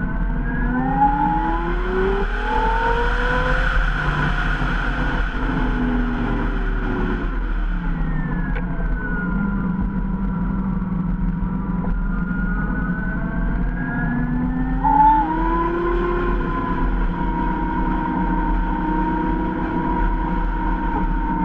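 Zero SR electric motorcycle's motor whining as it rides, the pitch rising with acceleration over the first few seconds, falling as it slows about seven seconds in, then rising again about fourteen seconds in. Steady wind and road noise run underneath.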